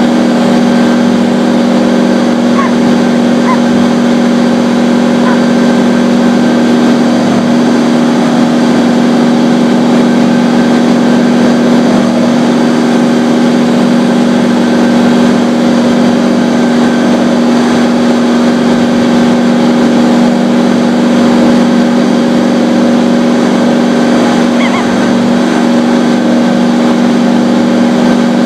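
Leaf blower running steadily, loud and close, with one unchanging engine pitch and the rush of blown air, heard from a camera mounted on the blower itself.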